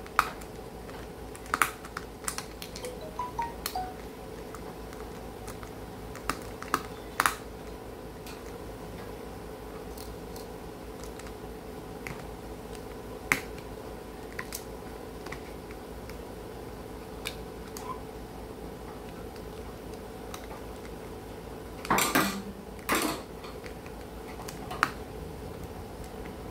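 Sparse small metallic clicks and taps of a precision screwdriver working screws out of an Amazon Echo Dot's metal internal frame, over a steady background hum. Two louder bursts of handling clatter come near the end.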